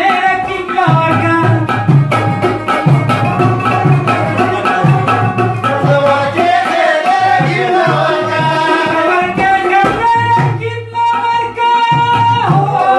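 Pashto ghazal sung by a male voice with rubab accompaniment, while an upturned aluminium cooking pot is played by hand as a drum, keeping a steady beat. The voice slides between notes and holds one long note a little after the middle.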